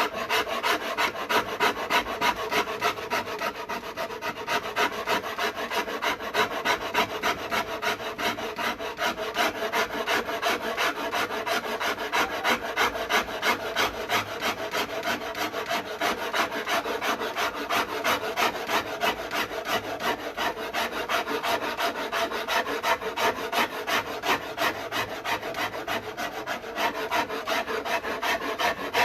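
Wood rasp being pushed in quick, even strokes, about three a second, across a bass guitar's wooden neck as it is carved to shape.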